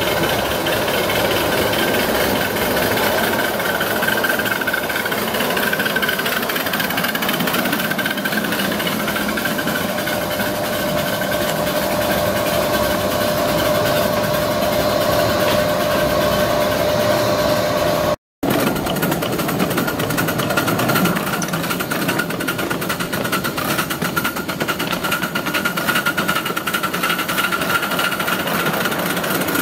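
5-inch gauge Metre Maid 0-6-2 live steam locomotive running on its track under steam, with a fast, steady, rapid beat. The sound cuts out for a moment about eighteen seconds in.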